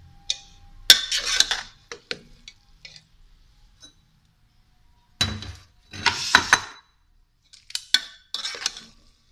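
Slotted metal spatula scraping and clinking against a metal cooking pot as spaghetti is served out, in three clattering bursts: about one second in, around five to six and a half seconds, and near the end.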